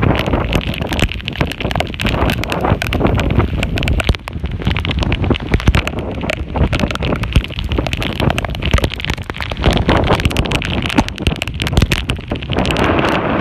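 Hurricane storm surge churning and splashing across a road, with strong wind buffeting the microphone in a dense, crackling rush.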